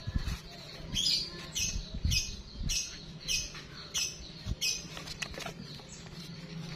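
Rapid, even rasping strokes, about three a second, of a hand tool scraping back and forth across a steel pipe, stopping about five seconds in.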